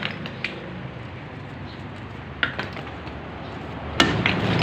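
Broken concrete hollow-block rubble being pulled out of a tomb opening by hand, chunks clacking and knocking against each other now and then. About four seconds in there is a sharp, louder knock.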